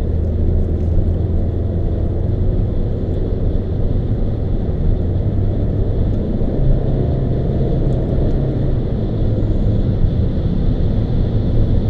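Car driving on the open road, heard from inside the cabin: a steady low rumble of engine and tyre noise.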